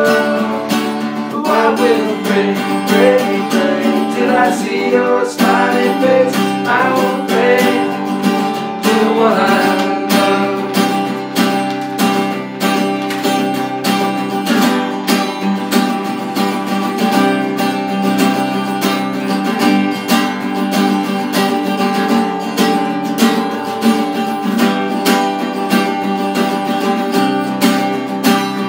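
Acoustic guitar strumming chords over an acoustic bass guitar, with a man's voice singing without words for about the first ten seconds; then the two guitars play on alone.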